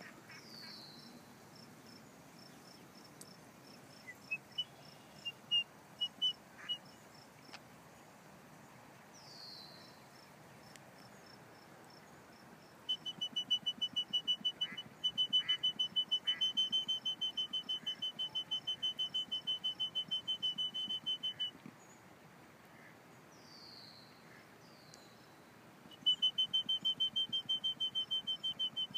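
Insects chirping in a high, even pulse of about four chirps a second, running for about eight seconds in the middle and starting again near the end, over a fainter fast ticking. A few short falling bird whistles come between.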